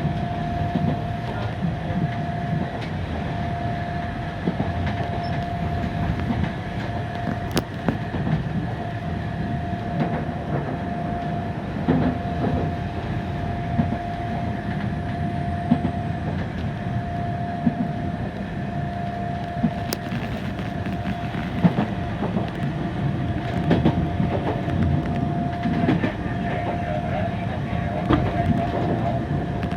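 Onboard running noise of a Fukui Railway type 770 tram moving slowly: a steady rumble with a constant whine, and now and then a sharp click from the wheels.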